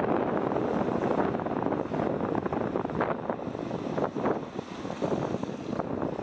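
Strong wind buffeting the microphone over surf, with waves breaking and splashing against a rocky shore; a couple of louder crashes come about three and four seconds in.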